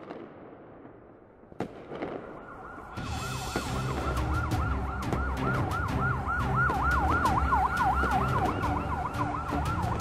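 A single sharp bang, then an emergency-vehicle siren comes in, sweeping quickly up and down about four times a second in a yelp pattern, over a low pulsing beat.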